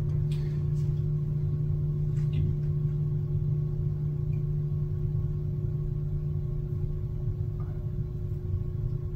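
A steady low drone with a fainter, higher tone held above it, unchanging, with a few faint ticks.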